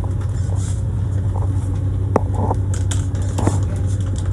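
Car cabin noise while driving: a steady low engine-and-road drone, with a few sharp ticks or taps, one about two seconds in.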